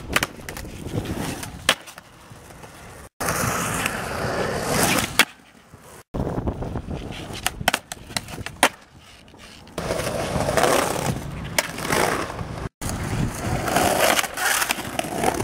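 Skateboard wheels rolling on concrete, with sharp clacks as the board pops and lands, and scraping as it slides along metal-edged concrete ledges. The sound breaks off abruptly three times between short clips.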